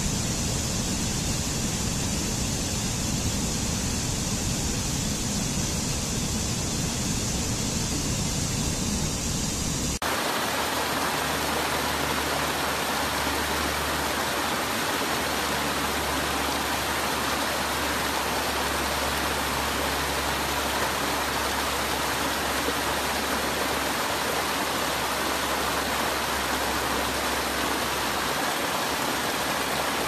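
Steady rush of stream water cascading over rocks. About ten seconds in, the sound changes suddenly to a different stretch of water with a fuller, more even rush.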